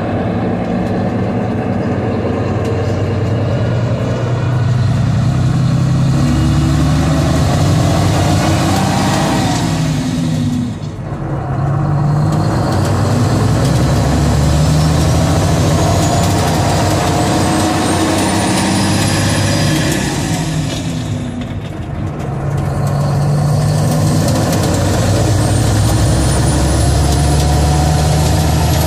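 Mack R-model truck's diesel engine heard from inside the cab, pulling hard and climbing in pitch with a rising whine. The engine drops off briefly twice, about a third of the way in and again about two-thirds through, as it shifts gears.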